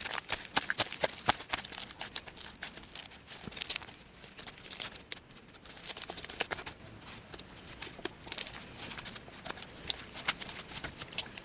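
Elmer's glue slime being kneaded and stretched by hand, giving a dense run of irregular sticky clicks and small pops.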